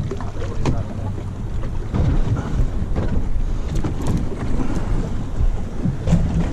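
Wind buffeting the camera microphone over the steady low rumble of a boat at sea, with a few light clicks.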